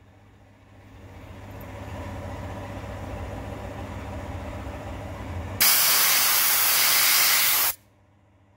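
A soda blaster firing a burst of compressed air and bicarb soda: a loud hiss of about two seconds, coming in sharply about two-thirds of the way through and cutting off suddenly. Under it, and for the seconds before, an air compressor runs with a low rumble that builds up at the start.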